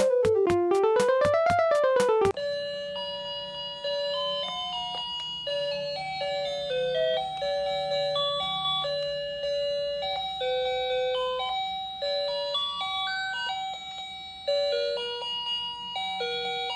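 Electronic siren sound wailing up and down twice, cutting off about two seconds in, followed by a simple chiming electronic melody of single notes, the kind of tune a toy vehicle's sound chip plays.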